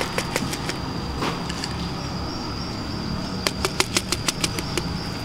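Dry cat kibble shaken from a small plastic bottle, the pieces clicking onto concrete: a few scattered clicks at the start, then a quick run of about eight clicks near the end. A steady low hum runs underneath.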